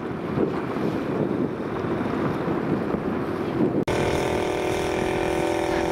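Wind buffeting the microphone on a moving boat out on the lake. About four seconds in the sound cuts to the boat's engine running at a steady, even pitch.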